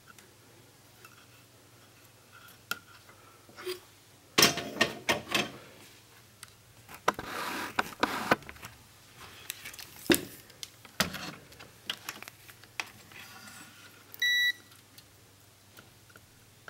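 Handling noise on a workbench: scattered clicks, knocks and rustling as tools and a digital multimeter are moved about. About fourteen seconds in comes one short, high beep from the multimeter.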